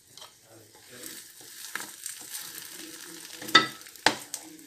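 Beaten eggs and potato cubes sizzling in butter in a non-stick frying pan, a steady faint frying hiss. Two sharp knocks, about three and a half and four seconds in, are the loudest sounds.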